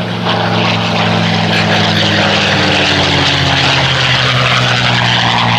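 North American P-51 Mustang flying by, its Packard-built Merlin V-12 engine and propeller giving a steady, loud drone whose pitch falls slightly as it passes.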